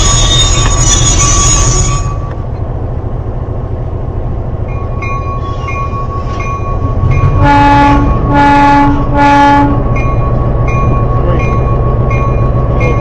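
Train locomotive running with a steady low rumble, louder with a high hiss for the first two seconds. From about five seconds in its bell rings in evenly spaced strokes, and around eight seconds in the horn sounds three short blasts.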